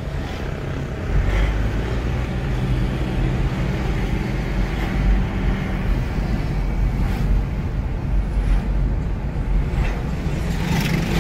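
Mitsubishi Pajero 3.2 DID turbodiesel heard from inside the cabin on a road test: a steady low engine and road rumble, with a few faint ticks. The engine is running after repair of its flywheel, which had broken in two and caused a loud knocking.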